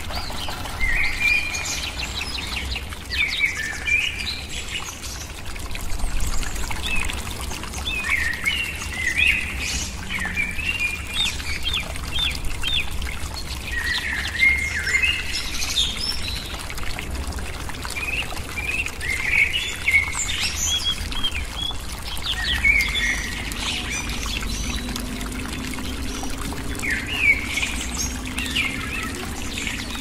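Water pouring and trickling steadily from a miniature water pump's outlet into a small channel, with clusters of bird chirps every few seconds over it.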